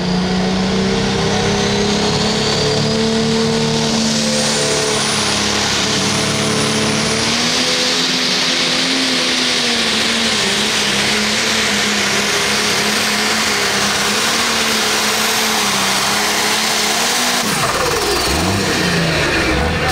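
Red diesel pulling tractor at full throttle, dragging the weight-transfer sled down the track. The engine note climbs and then holds high and steady, with a high whistle rising over it in the first few seconds. Near the end the revs drop away sharply as the pull ends.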